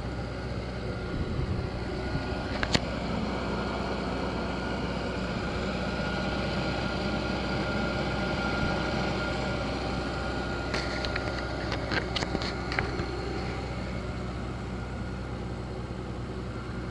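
Mercedes-Benz CL600's twin-turbo V12 idling steadily under the open hood, with a faint steady high whine over the low hum. A single sharp click comes about three seconds in, and a quick run of light clicks follows a little past the middle.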